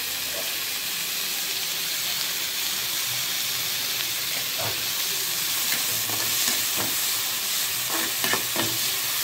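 Chopped onion, green chilli, coriander and curry leaves sizzling steadily in oil in a metal kadai as they are lightly sautéed. A slotted steel spatula stirs and scrapes against the pan a few times in the second half.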